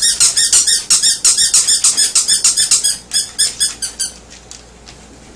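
Squeaky rubber toy alligator squeaking over and over, about five squeaks a second, as the basset hound chews on it; the squeaking stops about four seconds in.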